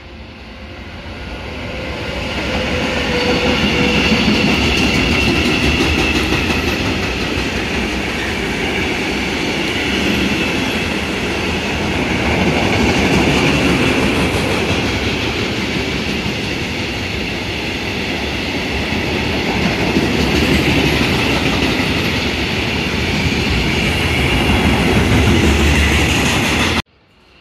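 Freight train of coal hopper wagons hauled by a class 186 electric locomotive rolling past, loud and sustained. It builds over the first few seconds and cuts off abruptly near the end.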